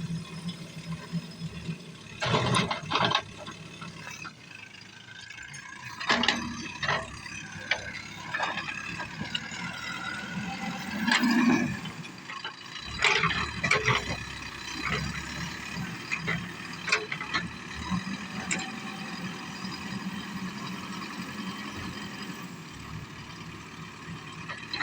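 JCB backhoe loader's diesel engine running steadily, its pitch rising and falling as the hydraulics work, with repeated sharp clanks and rattles from the digging gear.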